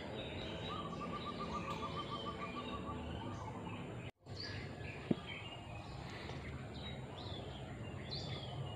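Faint outdoor ambience of birds chirping, with a rapid, evenly pulsed trill that starts under a second in and lasts about two and a half seconds. Just past the middle the sound drops out for a moment, and a single sharp click follows about a second later.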